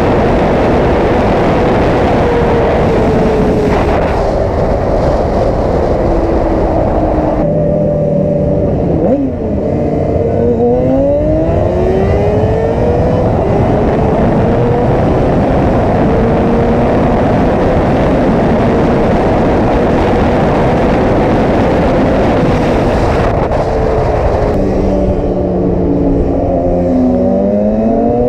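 Yamaha R6 sportbike's inline-four engine running at highway speed under heavy wind noise. It revs up through the gears with a rising engine pitch about ten seconds in and again near the end.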